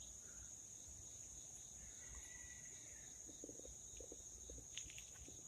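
Near silence apart from a faint, steady, high-pitched insect chorus.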